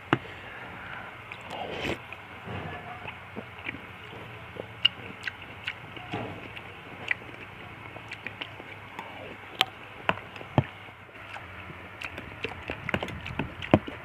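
Close-up chewing of fruit soup with nata de coco: irregular small, sharp wet clicks of biting and mouth sounds.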